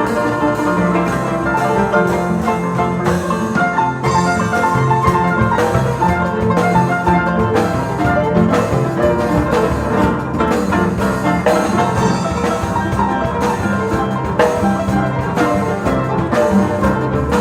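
Paraguayan harps playing as an ensemble: continuous music made of many short, overlapping notes over a steady bass.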